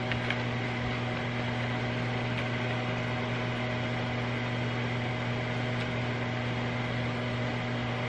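Microwave oven running with a steady hum.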